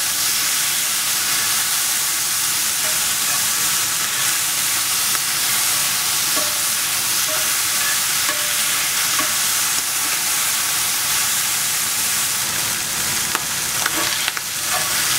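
Sliced Roe's abalone frying in hot butter in a cast-iron pan: a steady sizzling hiss. A few clicks of a spatula against the pan come near the end.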